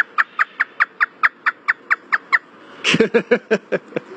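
African grey parrot imitating hysterical human laughter: a fast run of short falling 'ha' notes, about five a second, then after a brief pause a second, lower burst of laughing.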